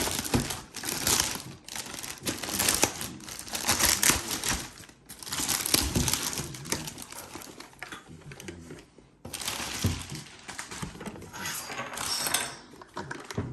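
Plastic wrapping crinkling and rustling as it is pulled off a robot vacuum cleaner, in uneven bursts with two short pauses.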